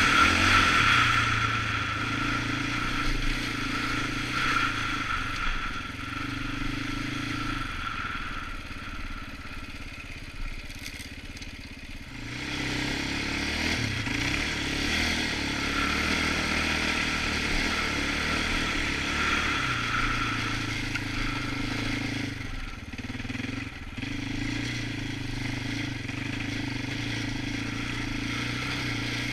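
The KTM-built single-cylinder four-stroke engine of a Polaris Outlaw 525 ATV running under changing throttle on the move. It eases off and goes quieter about eight seconds in, then picks up again about twelve seconds in, and dips briefly again near the end.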